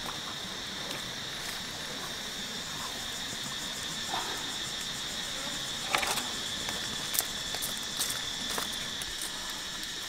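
Steady high-pitched drone of insects, with a few sharp crackles from the wood fire under a grill of whole fish between about six and nine seconds in, the loudest at about six seconds.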